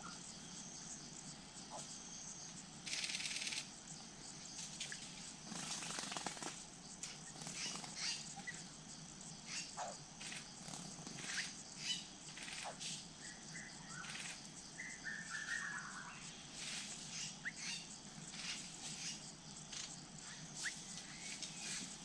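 Wild forest birds calling around a drinking pool: scattered chirps and short whistles, with a run of stepped notes falling in pitch about fifteen seconds in. A brief flutter of wings comes about three seconds in.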